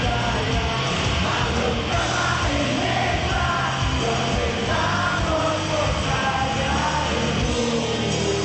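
Rock band playing live: loud, dense music with a singer's voice, partly yelled, over it.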